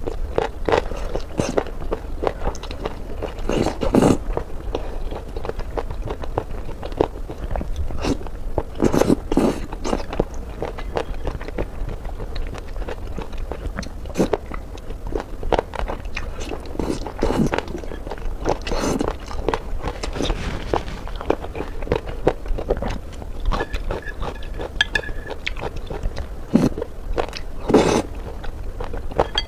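Close-miked eating of boneless chicken feet: irregular crunchy bites and wet chewing, with a steady low hum underneath.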